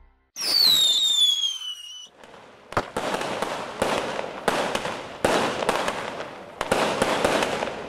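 Firework sound effect: a whistle falling in pitch for about two seconds, then a string of sharp crackling bursts.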